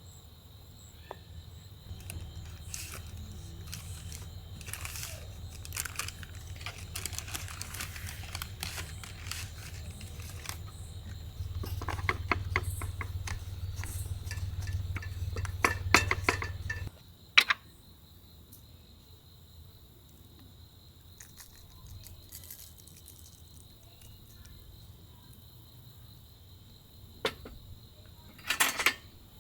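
Clicks and clinks of cookware and utensils being handled, over a steady high drone of crickets. A low hum runs under the first half, grows louder and then cuts off suddenly about 17 seconds in.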